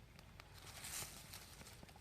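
Small paperbark tinder fire crackling faintly with scattered light pops, and a brief hissing rustle about a second in.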